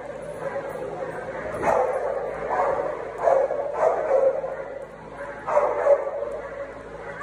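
Large dogs barking during rough play, about seven barks with short gaps between them, some coming in quick pairs.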